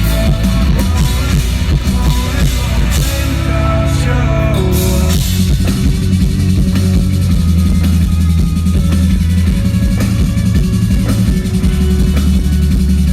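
Live rock band playing loudly, with drum kit and guitar; about five seconds in the upper parts drop away and a heavy, steady bass carries on.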